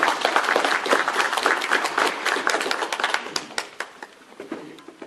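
Audience applauding at the end of a speech, dying away near the end.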